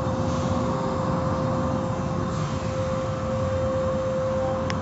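Automatic car wash tunnel running: a steady rumble of water spray and machinery with a constant hum, heard through the viewing-window glass.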